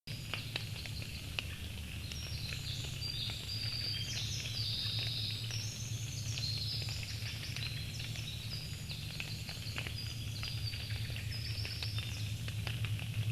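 Small birds chirping and twittering continuously in many short, high notes, over a steady low hum.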